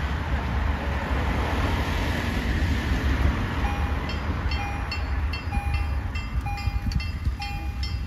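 Electronic level-crossing warning bell starting up about four seconds in, ringing a short chime roughly once a second. Before it, the steady rushing noise of a car passing on the road.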